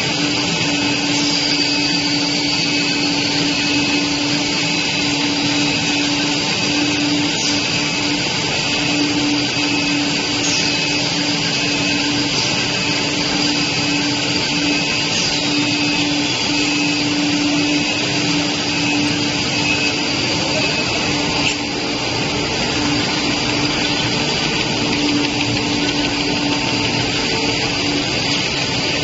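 Four-screw cast stretch film extrusion line running: steady, unchanging machine noise with a held low hum.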